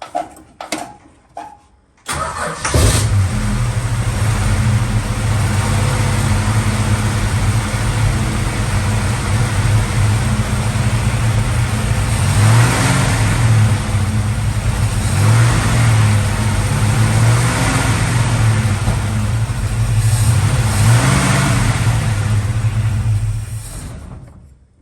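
Valiant Charger VH's carburetted engine starting about two seconds in, running with several blips of the throttle, then shutting off near the end. It won't keep running without choke, which the owner puts down to a massive vacuum leak.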